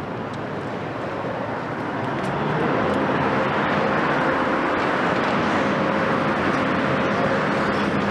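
Volvo EC700B long-reach demolition excavator with its Volvo D16E diesel engine and hydraulics running steadily. It grows louder about two seconds in and holds there as the boom is worked.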